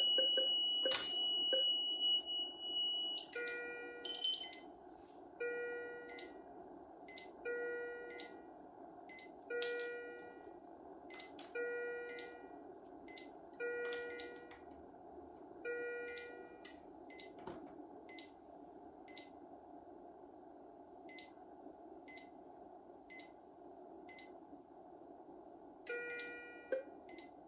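Patient monitor alarm tones from a Philips IntelliVue MP30. A steady high tone is broken by a sharp click about a second in, then a repeating multi-tone alarm chime sounds about every two seconds. The chime stops about sixteen seconds in, leaving faint short beeps about once a second, and returns near the end.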